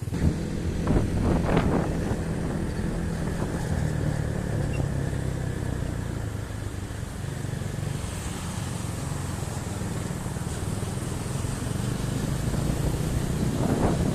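A motor vehicle's engine running steadily, with a few brief louder noisy gusts.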